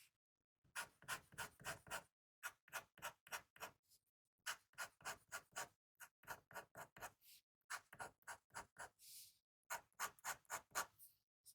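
Sailor Clear Candy fountain pen nib scratching quietly across paper as it writes: runs of quick strokes, several a second, with short pauses between them.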